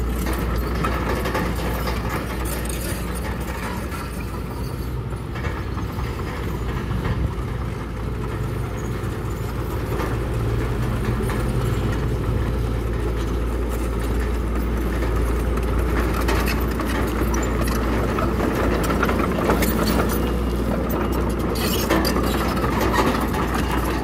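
Komatsu crawler bulldozer's diesel engine running steadily under load as its blade and tracks push broken stone, with scraping and clattering of rock and steel track links that grow busier in the second half.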